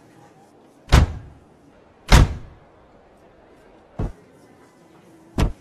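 Car door slammed shut four times, about a second apart or more, the first two the loudest with a short reverberant tail and the last two shorter, duller thuds.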